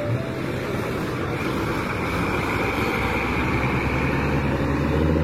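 Diesel tour bus engine running, a low rumble that settles into a steadier, slightly louder hum near the end.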